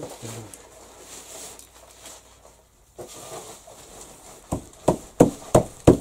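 Five quick, sharp knocks of a small hammer chipping at a piece of brick held in the hand, coming near the end after a few seconds of quiet handling noise.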